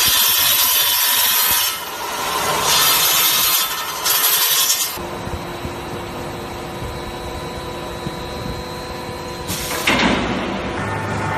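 Hydraulic copper-bar drawing machine at work: three loud bursts of hissing in the first five seconds, then a steady mechanical hum with a faint whine, and one more short hiss near the end.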